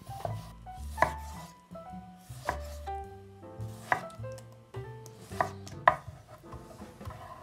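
A chef's knife chops a tomato on an end-grain wooden cutting board, each stroke a sharp knock on the wood at an uneven pace. Soft piano music plays underneath.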